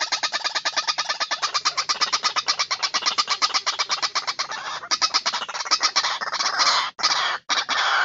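White-breasted waterhen calls from a bird-trapping lure recording. A fast, even run of repeated notes, about nine a second, turns into denser, more continuous calling from about five seconds in, broken by short gaps near the end.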